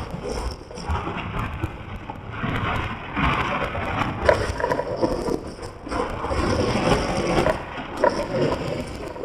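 Wind buffeting the microphone and road noise from a convertible driving with the top down, an uneven rumbling rush that rises and falls.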